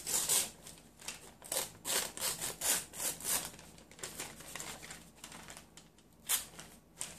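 Paper rustling and rasping as a torn piece of newsprint-patterned craft paper is handled, folded and rubbed against the cutting mat. There is a quick run of short rasping strokes over the first three seconds or so, then fewer, with a sharper rustle about six seconds in.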